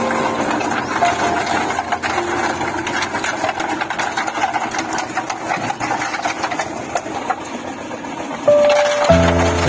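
A small engine-driven machine running steadily with a fast rattle, with faint background music under it. The music comes back louder near the end.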